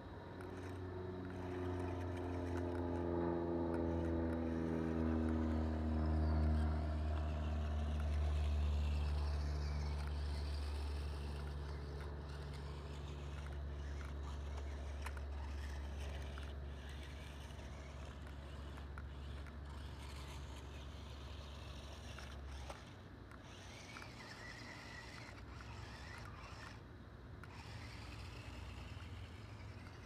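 A low machine hum with several slowly falling tones over the first ten seconds; the hum cuts off suddenly about 23 seconds in.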